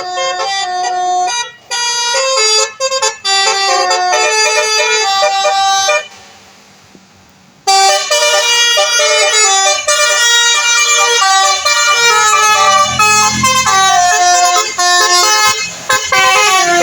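Telolet horn, a multi-tone musical air horn, playing a quick stepped melody of several notes at once, stopping for a couple of seconds near the middle and then playing again. A vehicle engine rumble comes in underneath towards the end.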